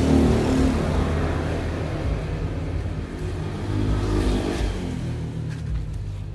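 Motor vehicle engine running, swelling near the start and again around four seconds in, then fading.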